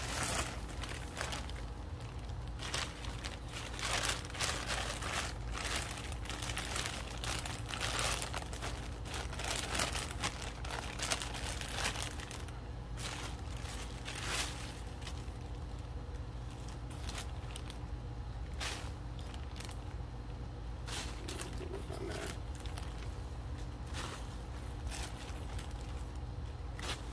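Plastic bags crinkling and rustling as potting mix is scooped and poured into a plastic grocery bag, with irregular crackles and the scrape of soil, busier in the first half and sparser later.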